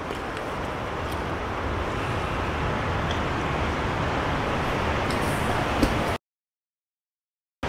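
Steady rushing of a fast-flowing river, with a single knock near the end; it cuts off abruptly about six seconds in.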